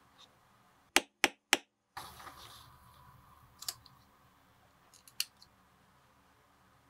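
Three sharp blows of a wooden mallet on a metal setter, setting hardware into a leather leash strap, about a quarter-second apart. After that, soft rustling and a couple of small clicks as thread is handled.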